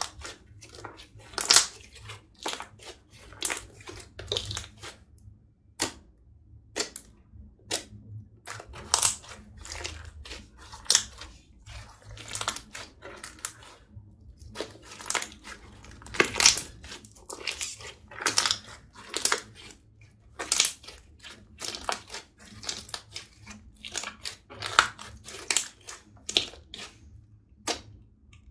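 Green glitter slime being kneaded, squeezed and pressed by hand, giving off irregular sharp pops and clicks, about one or two a second.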